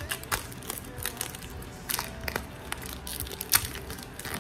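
Plastic shrink-wrap on a cardboard box crinkling and crackling as fingernails pick at it, in irregular clicks with one louder snap about three and a half seconds in.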